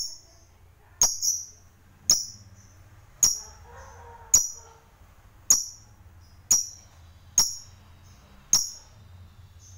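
Fischer's lovebird giving short, sharp, high-pitched chirps about once a second, ten or so in a row, one of them doubled.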